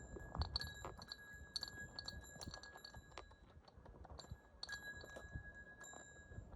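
Light clicking and clinking with a thin, chime-like metallic ringing, in two stretches about three seconds and a second and a half long.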